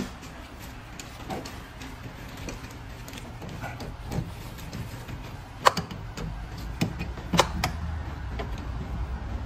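Hand tools working on the coolant hoses: scattered clicks and knocks as pliers compress the spring hose clamps, with several sharp clicks in the second half, over a steady low rumble.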